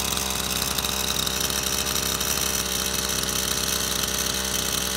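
Sterwins PCS2-35.3 two-stroke petrol chainsaw running steadily on its first run, then starting to wind down right at the end as it is switched off.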